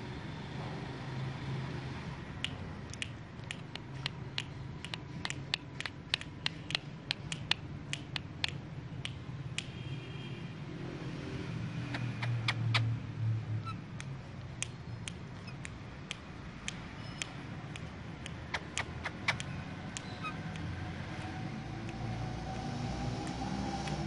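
Indian ringneck parakeet making quick sharp clicks, about four a second, in two runs separated by a pause of a few seconds, over a low background rumble.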